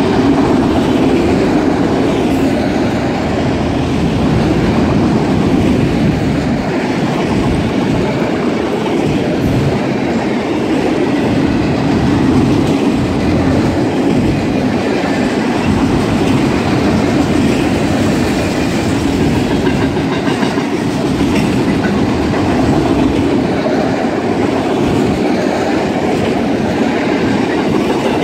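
Freight train of autorack cars rolling past at close range: a steady rumble of steel wheels running on the rails.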